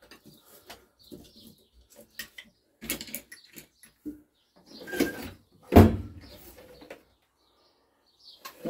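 Hand tools being picked through and handled: a scatter of light clicks and clatters, with two louder knocks about five and six seconds in.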